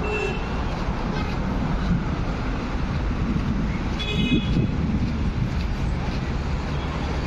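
Steady passing road traffic, with a short car horn toot about four seconds in.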